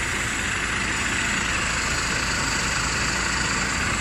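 Heavy diesel truck engines idling steadily, under a constant hiss.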